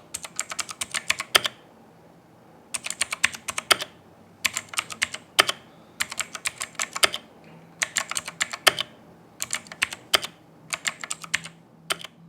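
Typing on the GAMEN Titan III mechanical keyboard with its default Otemu Blue switches: sharp, clicky keystrokes in about seven quick runs of a second or so, with short pauses between.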